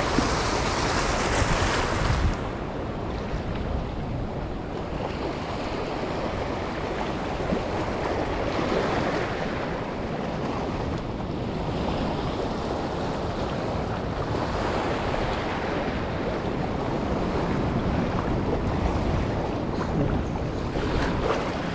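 Wind buffeting the microphone over moving water, a steady rushing noise whose hiss softens about two seconds in.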